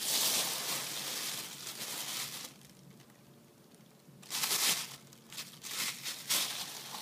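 Thin clear plastic bag crinkling as it is pulled off a 10-inch subwoofer by hand. About two and a half seconds of crinkling, a quiet pause, then a few more short bursts of crinkling.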